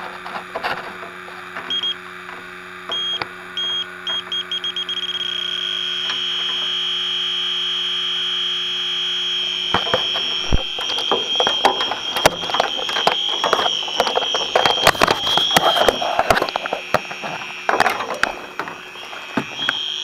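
Electronic refrigerant leak detector beeping, the beeps coming faster and faster until about five seconds in they merge into a steady alarm tone: the detector has picked up refrigerant leaking from the evaporator coil, which has more than one leak. The tone holds for about ten seconds under the clatter and rustle of the probe being handled, fades, and sounds again near the end.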